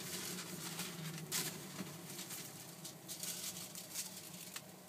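Takoyaki sizzling and crackling in the cast-iron takoyaki griddle, irregular small pops over a steady low hum.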